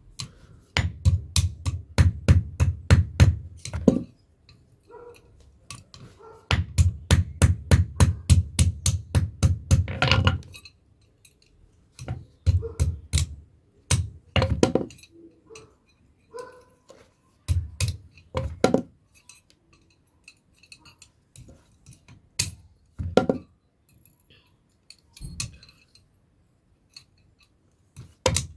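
Blacksmith's hammer striking metal on an anvil: two quick runs of blows, about four to five a second, then slower single blows and short groups with pauses between.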